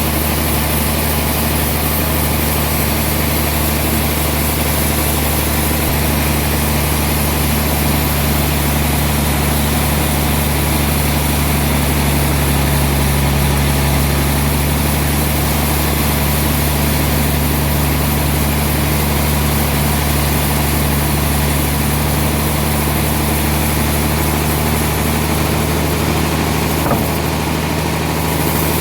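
Sawmill machinery running steadily with a constant low engine-like hum, with a single short knock near the end.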